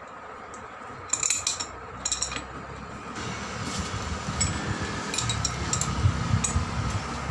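Metal-on-metal clinks and taps from an adjustable spanner working a brass hose nipple tight into the air inlet of a 1-inch pneumatic impact wrench: a few short clicks in irregular groups. A faint rumble grows in the second half.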